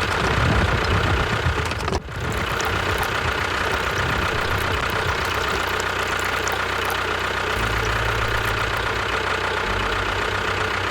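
A mini DIY model tractor running with a steady engine-like sound. It briefly breaks off about two seconds in, and its low-pitched part shifts around seven and a half seconds.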